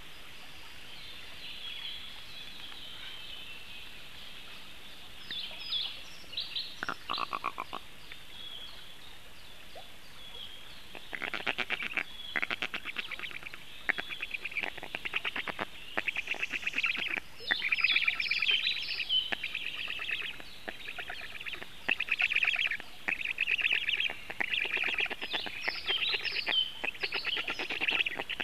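Black stork chicks giving rasping begging calls in rapid pulsing runs, starting about a third of the way in and growing louder: the chicks are begging the adult for food. Faint birdsong sounds before the calls begin.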